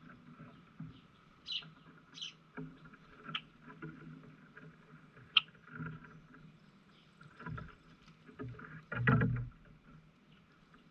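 Short, high bird chirps now and then over a steady faint hum, with a sharp click about five seconds in and a louder, broader knock-like burst about nine seconds in.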